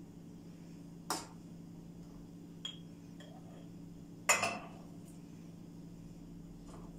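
Metal spoon clinking against a stainless steel pot and a small glass jar as cooked strawberry jam is spooned into the jar: a clink about a second in, a faint tap before three seconds, and a louder clatter at about four seconds. A steady low hum underneath.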